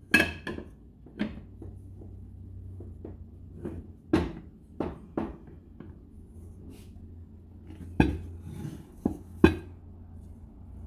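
Ceramic plate clinking and knocking against a frying pan as it is set over the pan and the pan is turned over onto it to turn out a cake. Scattered knocks, the sharpest right at the start and about a second before the end.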